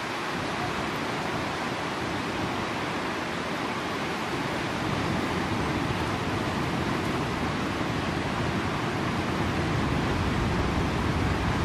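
Steady rushing noise of a fast-flowing river, mixed with wind on the microphone, growing a little louder and deeper about halfway through. No separate splashes stand out.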